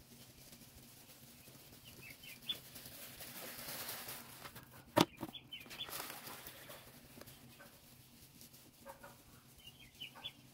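Walk-behind broadcast spreader pushed across a lawn, its spinning impeller flinging granular fertilizer with a soft rattling rush. It gets louder as it passes close by and then fades, with one sharp click about halfway through.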